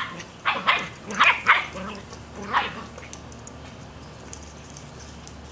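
Shetland sheepdog puppy barking in play, about five short, sharp barks over the first three seconds.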